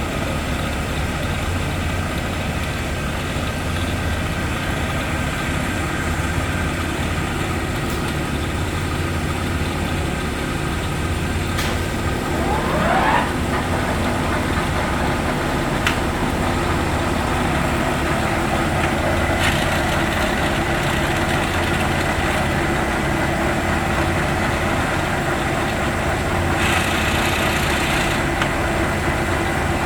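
A 1981 Leblond HD 3220 heavy-duty engine lathe, with its 25 hp main motor, running with a steady machine hum. A brief rising whine comes about halfway through, with a few sharp clicks and a short hiss near the end.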